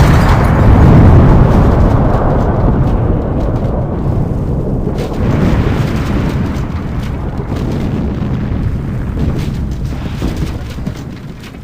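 Deep rumble of a massive explosion slowly dying away, with a second swell about five seconds in.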